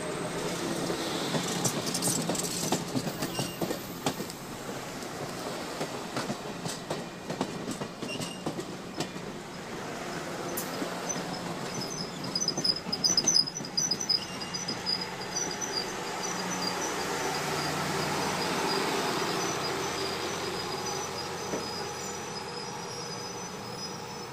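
Passenger train coaches rolling slowly past close by, their wheels clicking over rail joints with a steady rumble. About ten seconds in, the wheels squeal with high thin tones for a few seconds.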